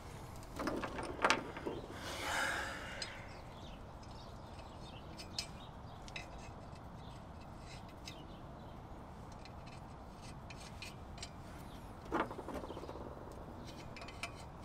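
Small metal clinks and ticks as lug nuts are handled and threaded by hand onto the wheel studs of a brake rotor, with a few clicks and a rustle early on and a sharper knock about twelve seconds in.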